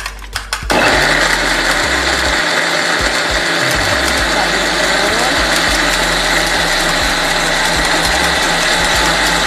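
Electric blender switching on about a second in and running steadily at full speed, grinding chilies, shallots, garlic, candlenut and kencur into a spice paste. Before it starts, a fork clicks quickly against a bowl as an egg is beaten.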